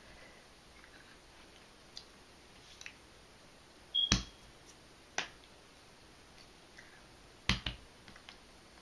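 Sharp slaps of hands against each other or the body while signing: one about four seconds in, a lighter one a second later, and a quick double slap about seven and a half seconds in, over faint room tone.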